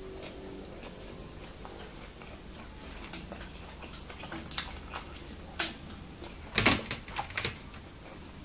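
A person chewing a mouthful of food with scattered small mouth clicks and smacks, a few louder ones together about six and a half seconds in.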